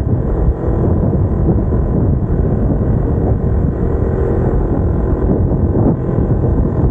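Kawasaki Ninja 250R's parallel-twin engine running steadily while riding, through aftermarket headers and exhaust, mixed with wind rumble on the microphone.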